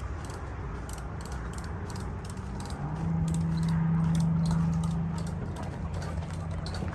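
An engine running with a steady low hum that swells for a couple of seconds in the middle, with light rattling clicks throughout.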